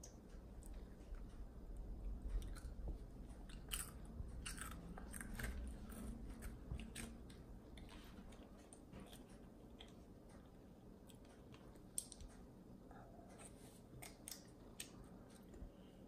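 A child chewing and crunching cereal flakes, faint, in irregular bursts of small crackles that are busier in the first half.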